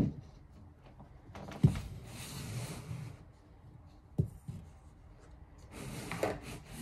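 Household items being handled and set down: three thumps, with rustling between them.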